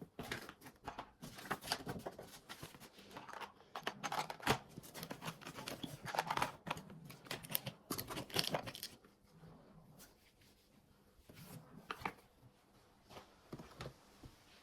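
Rustling and crinkling of something being handled, with dense, irregular crackles and scrapes that thin out to a few scattered ones after about nine seconds.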